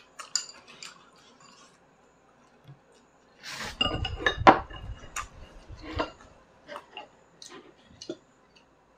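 Ceramic rice bowls and chopsticks clinking and knocking on a dining table at the end of a meal. There are scattered light clicks, then a cluster of louder clinks with a brief rustle about halfway through.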